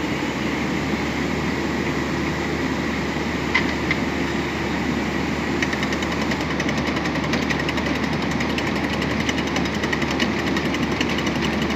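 Loader-mounted hydraulic guardrail post driver hammering steadily with rapid repeated blows, over its running engine. The blows grow sharper about six seconds in.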